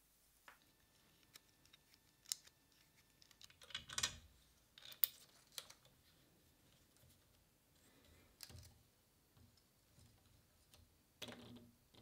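Faint, scattered clicks and taps, about eight in all, from small 3D-printed plastic camera-mount parts being handled and fitted together with a hex key.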